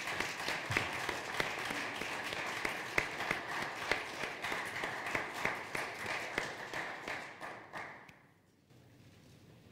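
Audience applauding, the clapping fading and dying away about eight seconds in.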